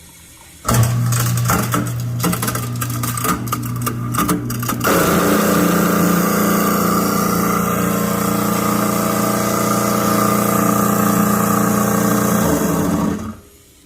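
Kitchen garbage disposal running loudly: the motor starts with a hum and rapid rattling clatter, settles after about four seconds into a steady loud grinding whine, and shuts off near the end. This is the kind of noise the handyman takes for worn-out bearings.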